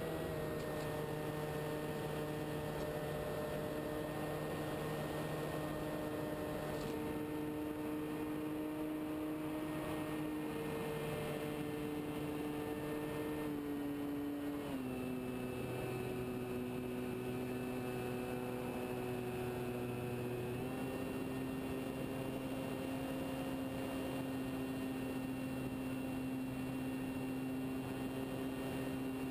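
Radio-controlled scale Tiger Moth model's motor and propeller running steadily in flight, heard from on board as a hum over rushing air. The pitch steps down about halfway through and rises again slightly a few seconds later.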